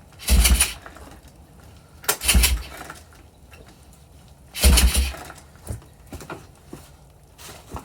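1985 Kawasaki KLT160 three-wheeler's single-cylinder engine pull-started three times, each yank of the recoil starter turning it over for about half a second without it firing. The owner suspects low compression or a bent valve.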